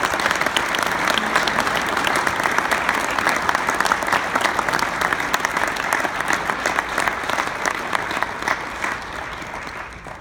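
Audience applauding, many hands clapping at once. It swells up at the start and fades away near the end.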